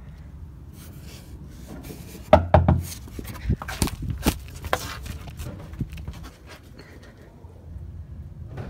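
Handling noise from a phone being carried and moved about: rubbing, with a cluster of knocks and scrapes in the middle, the loudest about two and a half seconds in, over a steady low rumble.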